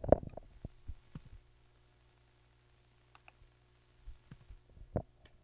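A few scattered soft clicks from a computer mouse and keyboard, over a faint steady hum.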